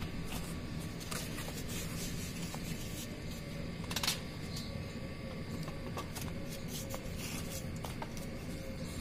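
Hands handling a copper refrigerant pipe and its brass flare fitting: scattered light clicks and rustles, with one louder rustle about four seconds in, over a steady low background hum.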